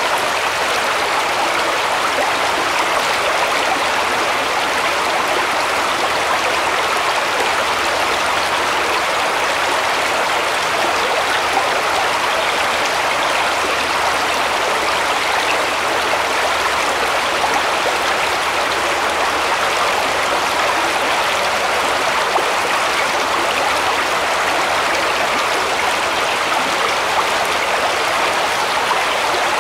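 Shallow woodland brook flowing over stones, a steady even rush of water.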